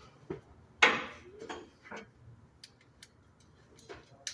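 Metal hand tools clinking and knocking at irregular intervals, likely sockets and a ratchet being handled. The loudest knock comes just under a second in and rings briefly.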